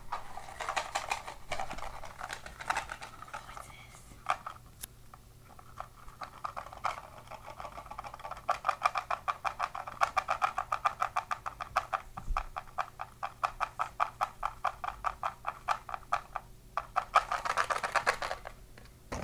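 Crinkly plastic packaging being scrunched, then shaken rhythmically at about five shakes a second, with a last burst of scrunching near the end.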